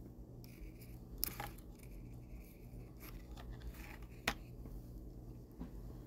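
Faint scratching of a small paintbrush stroking paint onto a wooden bunny cutout lying on a paper sheet, with two sharp light taps, about a second in and past the four-second mark, over a low steady hum.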